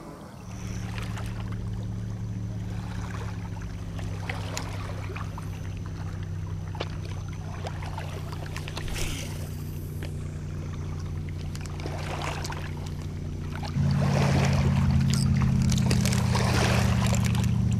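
A motor's steady low drone, which steps up louder about 14 seconds in.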